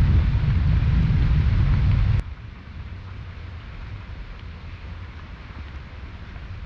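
Wind buffeting the microphone as a loud, rough low rumble, cut off abruptly about two seconds in, leaving a much quieter steady outdoor wind hiss.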